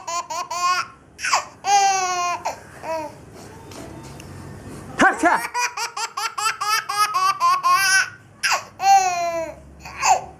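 A baby laughing hard: quick runs of high-pitched giggles and long falling squeals. The laughter breaks off for about two seconds near the middle, then starts again in a fresh run.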